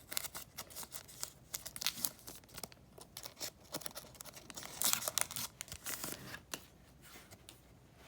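A foil trading-card pack being torn open and the cards handled: crinkling wrapper and sharp rustles with many small clicks, loudest about five and six seconds in.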